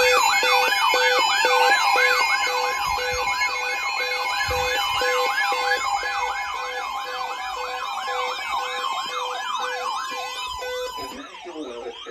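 Electronic siren in a fast yelp, its pitch rising and falling about twice a second over a steady tone. Near the end the siren stops and a different warbling pattern takes over.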